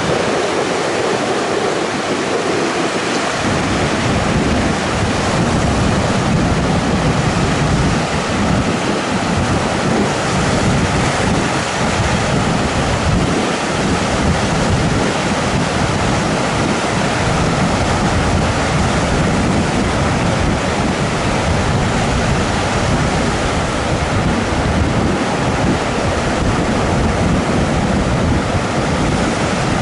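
Wind buffeting the microphone: a loud, steady rushing noise, with a gusty low rumble that sets in about three seconds in.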